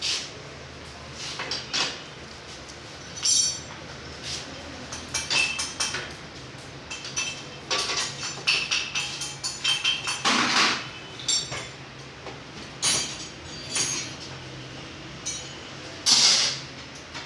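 Metal tools and parts clinking and tapping at irregular intervals, with sharp metallic strikes that ring briefly, the loudest about sixteen seconds in.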